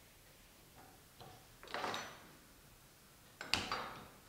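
Gas stove burner being turned on and lit: faint knob clicks, a short hiss, then a sharp click about three and a half seconds in as the flame catches.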